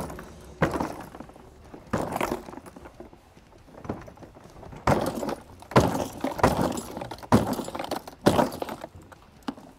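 A Milwaukee Packout two-wheel cart loaded with stacked toolboxes is bumped down wooden stairs. It gives a sharp thump as the wheels drop onto each step, about nine times, roughly a second apart and unevenly spaced.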